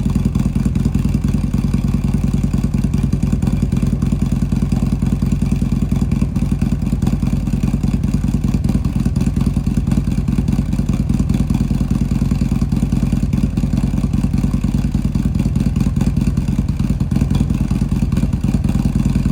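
Harley-Davidson V-twin motorcycle engine running steadily at idle, with an even, low pulsing beat.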